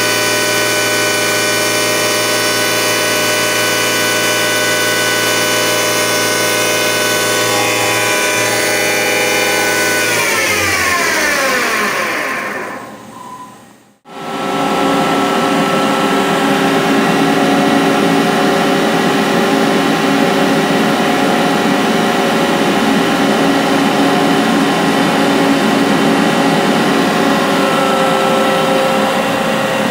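Hardinge CNC lathe spindle running with a steady whine, then switched off about ten seconds in, its pitch falling as it coasts down to a stop. Moments later it starts up again abruptly and runs steadily at speed.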